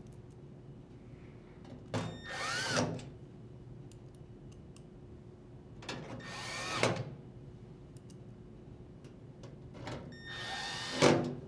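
A cordless drill driver with a Phillips bit runs in three short bursts, each about a second long, driving screws back into the washer's sheet-metal rear cover. The motor's pitch rises and then falls in each burst.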